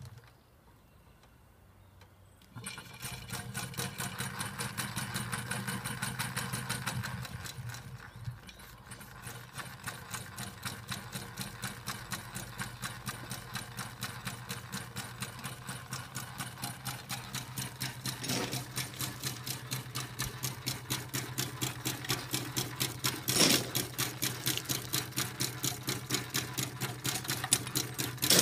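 Miniature coal-fired Hornsby chain-crawler steam engine running slowly with an even rhythmic beat, about three a second, over a steady low hum. Near silence for the first two seconds or so before the running starts, with a couple of sharper knocks later on.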